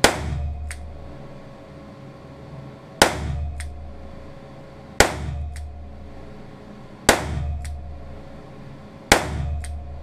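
Weihrauch HW5 T revolver firing .22 rimfire rounds in a steady string: five sharp shots about two seconds apart, each followed by a short ringing tail and a faint click.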